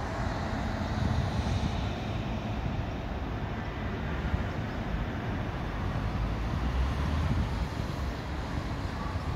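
Steady road traffic from a divided highway below, vehicles and trucks passing, with wind rumbling on the microphone.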